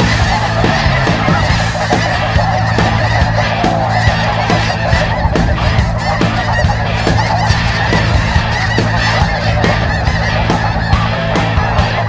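A large flock of snow geese calling overhead: a dense, continuous clamour of many overlapping honks with no break.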